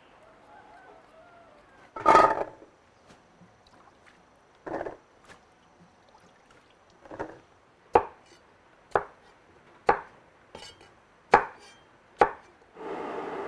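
Knife chopping on a chopping board: about nine separate strikes, irregularly spaced about a second apart, starting about two seconds in.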